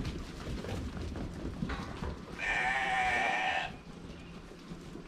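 A Shetland sheep bleating: one long, wavering bleat about two seconds in, over a low noise.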